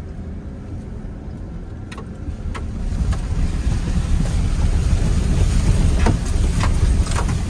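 4x4 pickup truck heard from inside the cab, its engine and body rumbling as it drives over a rough, wet dirt trail toward a mud hole. The rumble grows louder about three seconds in, with scattered knocks and clunks from the truck.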